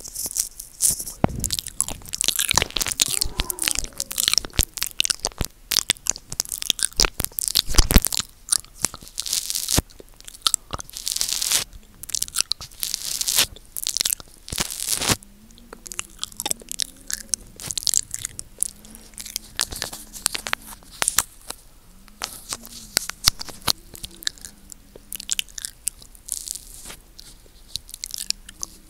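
Close-miked mouth sounds: tongue licking and lip smacking on the microphone, a dense, irregular run of wet clicks and smacks, with one louder smack about eight seconds in.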